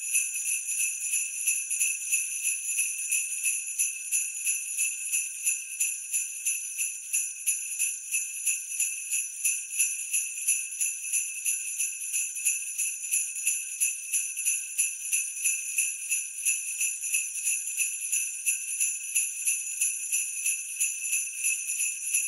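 Sleigh bells shaken in a steady rhythm, a bright jingling with no other instrument.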